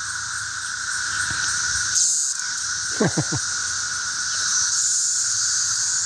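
Massed chorus of 17-year periodical cicadas: a continuous, even drone with a higher hiss above it, from millions of insects emerging at once. It is really loud, quite noisy.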